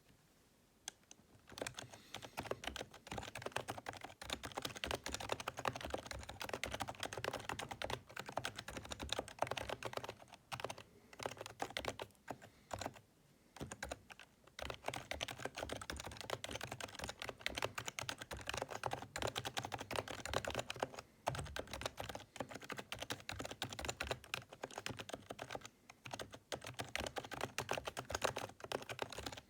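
Typing on a PFU Happy Hacking Keyboard Professional 2 Type-S, whose Topre electrostatic capacitive switches are the quiet, office-level kind: a fast, continuous run of soft keystrokes. It starts about a second and a half in and has a couple of brief pauses, the longest just before the middle.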